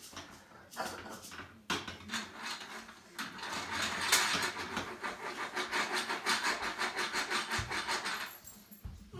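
Rapid, even clicking rattle of children's plastic toys, about seven clicks a second, lasting some five seconds and starting about three seconds in. It comes after a few scattered knocks and footsteps on a wooden floor.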